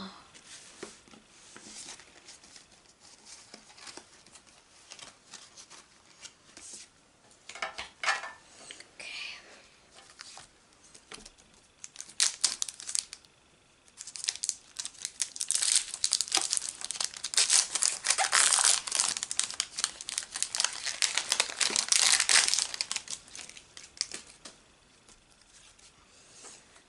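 Foil Pokémon booster pack wrapper crinkling and tearing as it is ripped open by hand, loudest from about halfway through until near the end. Before that, only soft rustles of cards and packs being handled.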